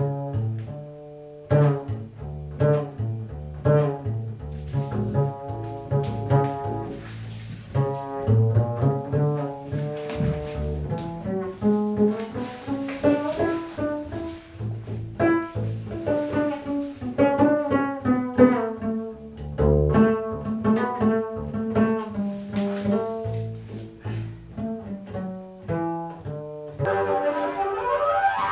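Double bass played pizzicato, a free improvised run of plucked notes, some quick and some left to ring, moving up and down the neck. Near the end the sound changes to a denser, higher ringing texture.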